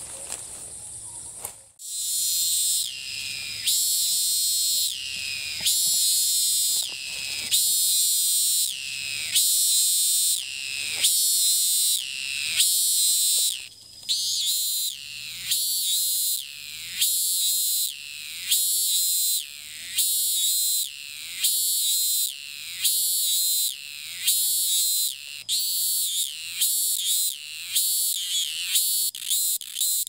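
Cicada calling loudly in a long series of repeated high-pitched phrases, each about a second long and dropping slightly in pitch. It starts about two seconds in, and the phrases come faster near the end.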